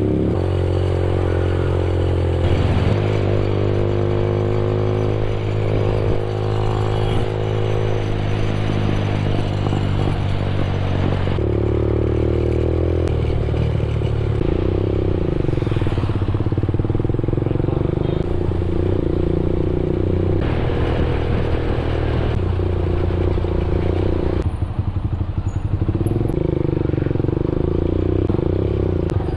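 Benelli TNT 15's 148cc air-cooled single-cylinder four-stroke engine running while the motorcycle is ridden, its note stepping up and down several times with throttle and gear changes. A short rattly patch comes near the end.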